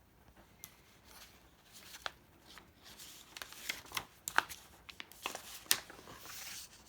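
Faint rustling and crisp clicks of paper as book pages are handled and turned, with a cluster of sharper snaps in the middle and a soft brushing hiss near the end.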